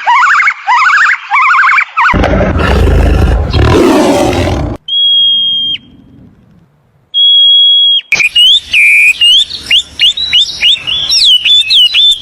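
A string of separate loud calls. First, repeated rising siren-like wails. Then a harsh noisy roar for about three seconds, two steady high whistles, and finally a fast run of chirping calls that swoop up and down.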